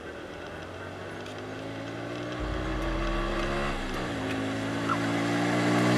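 A motorbike engine approaching, growing steadily louder and rising in pitch, with a drop in pitch about four seconds in before it climbs again.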